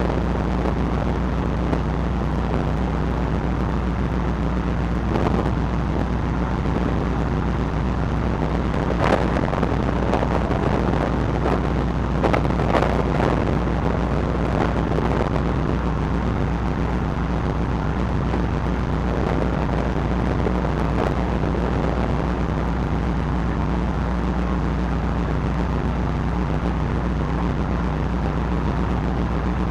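Steady low drone of a car ferry's engines and machinery, with wind on the microphone and a few faint knocks in the middle.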